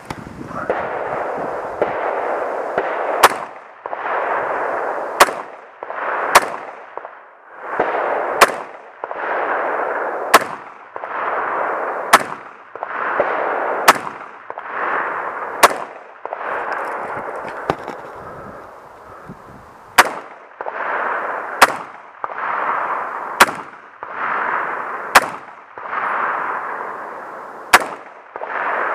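Rifle shots fired one after another about every one and a half to two seconds, about a dozen in all. Each sharp crack is followed by around a second of rolling echo. There is a pause of a few seconds in the middle before the firing resumes.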